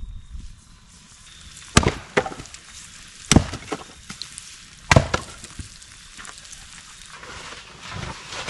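Long-handled splitting axe striking firewood on a chopping stump three times, about a second and a half apart, each sharp crack of the blow followed by a lighter knock as the wood splits.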